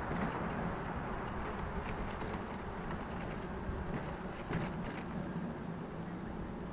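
E-bike riding along a paved trail: a steady rush of wind and tyre noise, with a few light clicks and rattles around the middle and some brief high chirps near the start.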